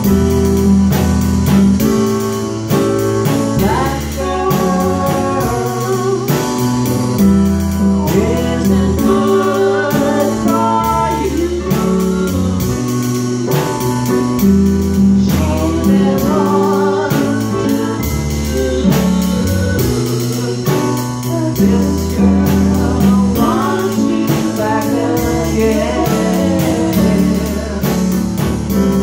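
A small band playing live: two electronic keyboards and a drum kit keeping a steady beat under a steady bass line, with a voice singing over it.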